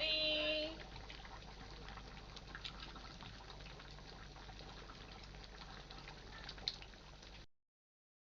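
A pot of black soup simmering, with faint bubbling and scattered small pops. A brief voice sound comes right at the start, and everything cuts off about seven and a half seconds in.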